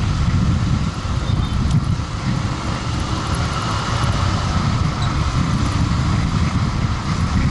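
Steady engine and road noise of a moving vehicle, heard from on board, with a constant low rumble and no sudden changes.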